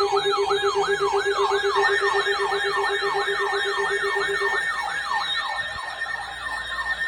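Electronic siren in a fast yelp: rapid falling sweeps, about five a second, over a fast-beeping lower tone that cuts off a little past halfway.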